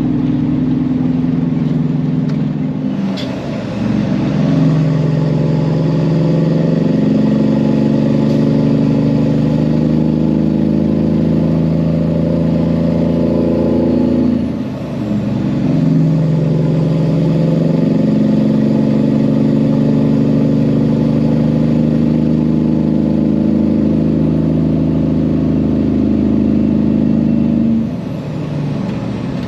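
Loaded Peterbilt semi truck's diesel engine pulling under load. Its note climbs slowly and breaks twice in short dips, like upshifts, about three and fifteen seconds in, then eases off near the end.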